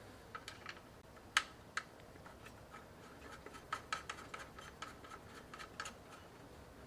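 Light clicks and taps of small cooler-mounting nuts being placed and turned down by hand on the bracket posts. Two sharper clicks come about a second and a half in, then a run of lighter clicks a few seconds later.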